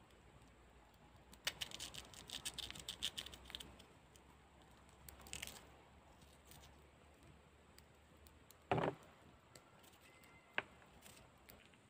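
Handling noises: a run of rattling clicks, a short rustle, then one louder thump and a single sharp click.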